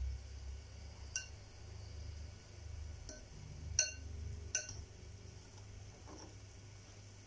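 Four light clinks of a metal fork against a ceramic bowl of batter, one about a second in and three between about three and five seconds in, each with a short bright ring, over a low steady hum.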